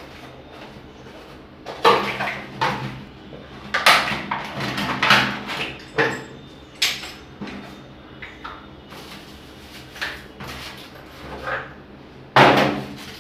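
Cardboard box of a hand shower set being opened and the shower head and hose handled and pulled out: irregular rustles, scrapes and knocks of cardboard and plastic, with a loud knock near the end.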